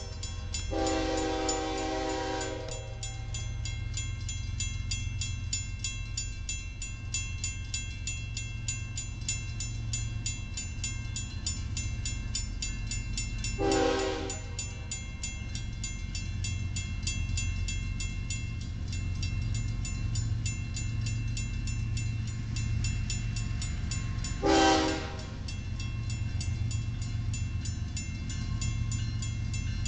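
Iowa Interstate GE ES44AC diesel locomotive approaching with a low engine rumble, sounding its air horn: a long blast about a second in, then a short blast near the middle and another a few seconds before the end. A grade-crossing bell rings rapidly and steadily over it.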